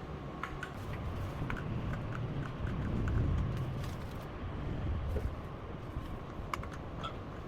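Typing on a Royal Kludge RK61 mechanical keyboard: irregular key clicks, a few a second and quickening near the end, over a low rumble.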